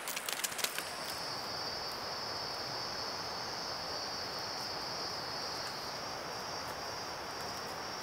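Insects droning in a steady high-pitched tone that starts about a second in, over an even background hiss, with a few sharp clicks in the first second.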